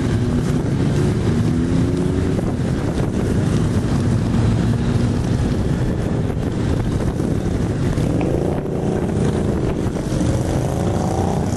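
Many distant motorcycles running in a group, a steady low engine drone with wind buffeting the microphone. Engine notes rise in pitch a little after the start and again over the last few seconds.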